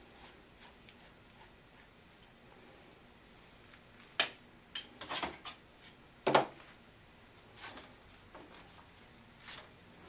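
Scattered knocks and clinks of metal parts being handled as the lead screw's end bearing is taken off an Atlas/Craftsman 618 lathe. Quiet for the first few seconds, then a run of short knocks from about four seconds in, the loudest a little past six seconds.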